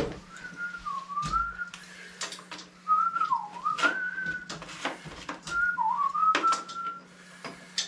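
A person whistling a wandering tune in four short phrases, with sharp clicks and knocks of hand tools on metal throughout.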